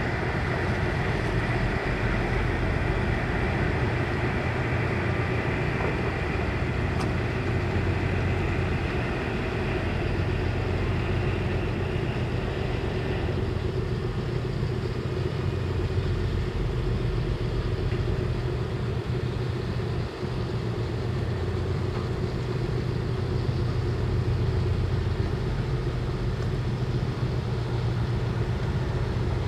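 A training ship's engine running with a steady low rumble as it moves slowly in to berth, with a rushing hiss above it that eases off about halfway through.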